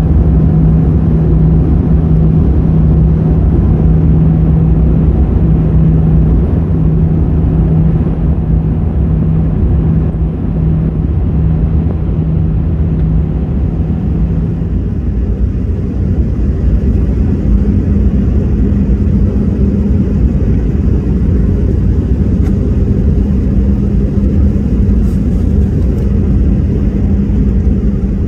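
Airbus A319 cabin noise on approach: a loud, steady low rumble of engines and rushing air. A steady hum within it steps up slightly in pitch about halfway through.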